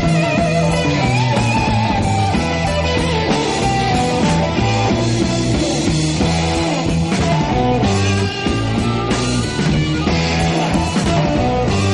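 Rock music with guitar and a steady bass line.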